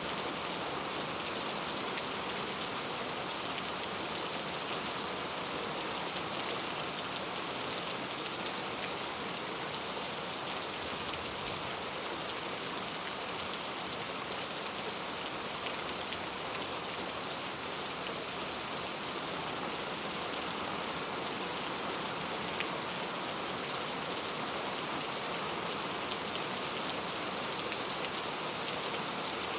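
Heavy rain falling steadily, a dense hiss of drops hitting a surface with fine drop patter throughout.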